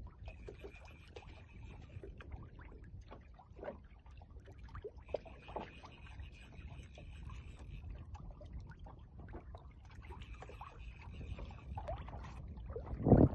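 Low wind rumble and small water slaps against a flats skiff's hull, with a faint high steady whine that comes and goes three times. A louder burst of noise comes near the end.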